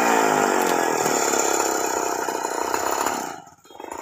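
Two-stroke chainsaw engine coming down from high revs and running on steadily, then the sound cuts off a little over three seconds in.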